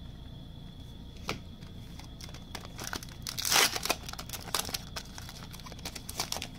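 Trading card pack wrapper crinkling and being torn open, with a longer rip about halfway through, among small clicks and rustles of cards being handled.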